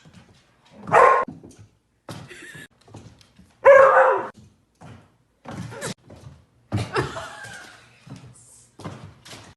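Dog barking in a series of short separate barks, the loudest about a second in and about four seconds in.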